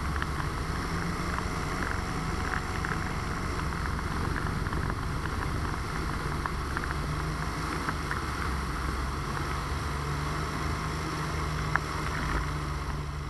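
Polini two-stroke engine of a weight-shift microlight trike running steadily through the landing approach, with heavy wind rush on the microphone. A single sharp knock near the end as the wheels touch the grass.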